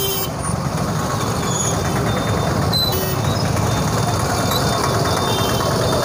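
Steady rumble of street traffic, with a short vehicle horn toot right at the start and another about three seconds in. Faint, brief high chirps come through the din.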